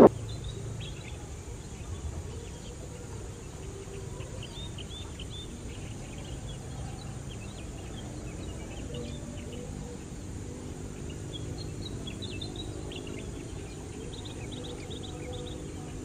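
Birds chirping in many short, high calls over a low, steady background rumble.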